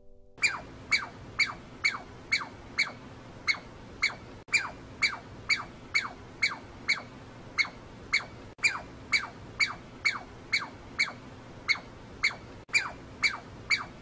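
Squirrel calling over and over, short sharp chirps about two a second, each falling in pitch.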